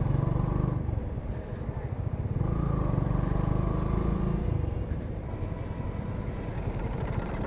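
Bajaj V15 motorcycle's single-cylinder engine running while riding, its sound swelling and easing off twice.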